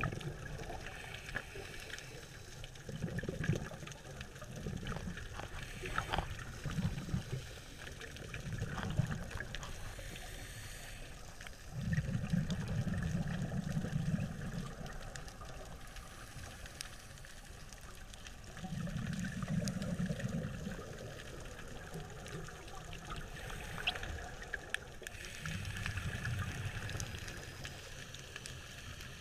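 Underwater sound of a scuba diver breathing through a regulator: muffled gurgling bursts of exhaled bubbles every few seconds, over a steady hiss with scattered faint clicks.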